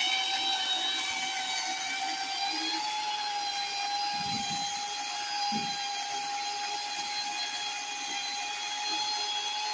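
Corded electric pole chainsaw running with a steady motor whine as it cuts into a fallen tree limb; the pitch lifts slightly about three seconds in, and two dull low thumps come in the middle.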